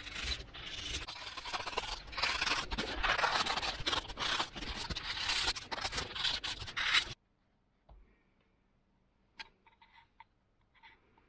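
Snap-off utility knife slicing and scraping through EPP foam, a steady run of scratchy cutting strokes. It cuts off suddenly about seven seconds in, leaving near silence with a few faint ticks.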